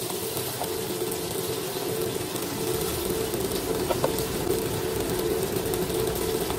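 Oil sizzling steadily in a frying pan around a whole fried tilapia and sautéed aromatics, with a steady hum underneath and a couple of faint spatula clicks about four seconds in.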